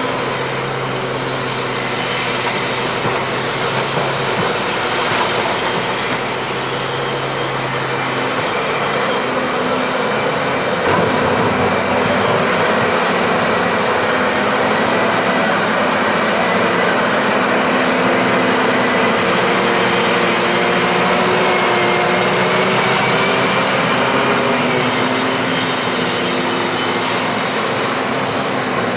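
Heavy diesel engine of a Komatsu PC1250 excavator running continuously, its engine tones shifting in pitch several times as the machine works.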